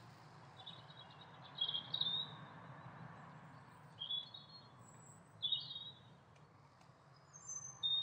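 Garden birds chirping: short bursts of high twittering notes, about a second in, around two, four and five and a half seconds, with thinner higher notes near the end, over a low steady background hum.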